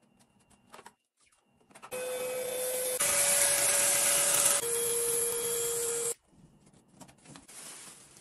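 A small electric motor appliance running with a steady whine over a loud hiss for about four seconds. Its pitch steps up and then down at two abrupt cuts, and it stops suddenly.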